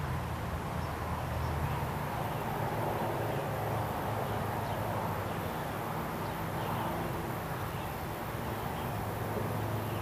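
Steady outdoor ambience: a low, even hum like a running engine under a wash of noise, with a few faint high chirps.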